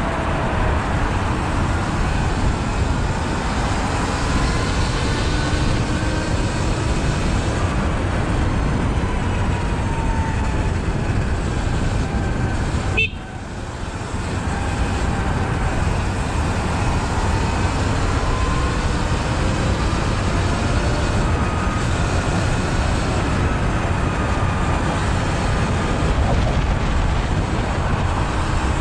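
Riding a Sur Ron electric dirt bike in city traffic: steady wind and road rumble with a faint whine that slowly rises and falls. The noise briefly dips about halfway through.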